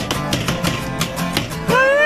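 Acoustic guitar strummed in a steady rhythm, about five strums a second. A man's voice starts singing along just before the end.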